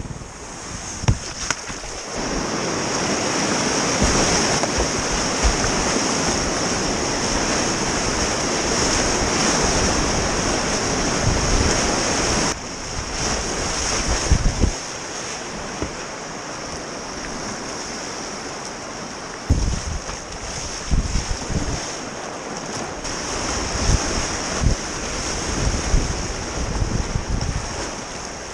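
Whitewater river rushing and splashing around a plastic whitewater kayak as it runs through waves, with wind buffeting the microphone. Scattered low thumps come from water and paddle strokes hitting the boat, and the rush drops a little about twelve seconds in.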